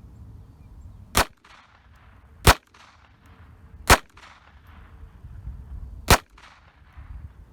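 Sig Sauer P322 .22 LR pistol firing four shots of Federal 36-grain hollow-point ammunition, irregularly spaced over about five seconds, each sharp crack trailing off in a brief echo.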